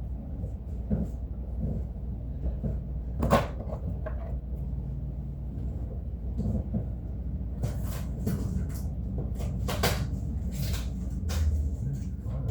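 Cardboard meal-kit box being opened and unpacked by hand: scattered knocks and scrapes, a sharp crack or tear about three seconds in, and a run of cardboard and packing rustling in the second half, over a steady low hum.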